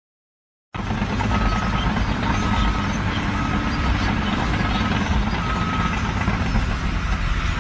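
Heavy vehicle engine running with a reversing alarm beeping about once a second, six times, before it stops.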